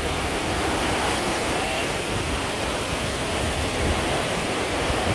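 Ocean surf breaking and washing up a sandy beach: a steady rushing hiss of waves.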